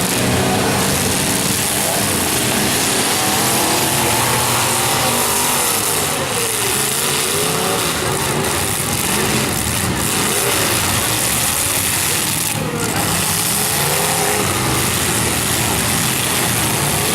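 Engines of several demolition derby cars revving, their pitch rising and falling over and over, over a steady loud din.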